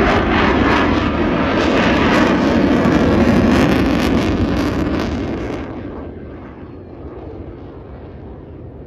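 Sukhoi Su-30MKI fighter jet's twin turbofan engines passing overhead, a loud crackling jet noise for about five seconds that then fades as the jet draws away.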